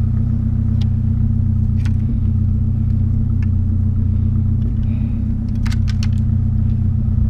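A vehicle engine idling with a steady low hum, with a few sharp clicks and clinks on top, a short cluster of them about six seconds in.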